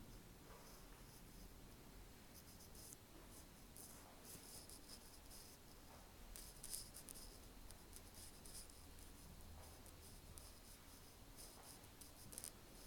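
Near silence: quiet room tone with a faint low hum and scattered faint rustles and clicks.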